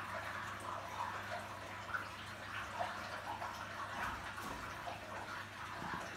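Aquarium water trickling and bubbling continuously, with a steady low hum beneath.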